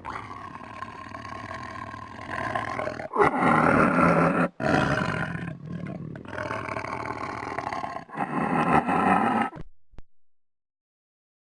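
Tiger growling: a string of long, rough growls with short breaks between them, loudest about three seconds in and again around nine seconds, then stopping about a second and a half before the end.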